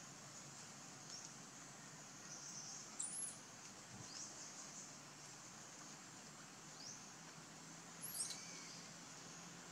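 Faint steady high insect hiss, with a few brief, high-pitched squeaks that fall in pitch, the clearest about three seconds in and again near the end.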